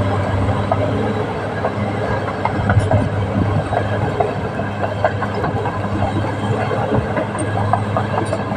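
Caterpillar D6R XL crawler bulldozer working, its diesel engine a steady drone under irregular clanking of the steel tracks.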